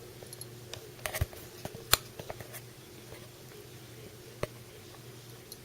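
A kitten batting at a small plastic toy: a quick run of light clicks and taps about a second in, then a single click a little later.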